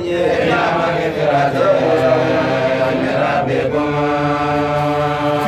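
A man's voice chanting in long, drawn-out melodic phrases, the notes held and slowly bending in pitch.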